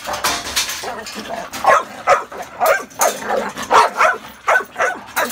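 Pit bull-type dogs barking aggressively in quick succession, about two to three barks a second, loudest from about a second and a half in.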